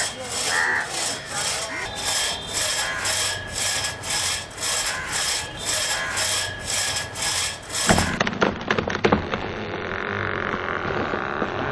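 Saw cutting through wood in steady back-and-forth strokes, about two a second. About eight seconds in, the sawing stops and a few sharp cracks follow.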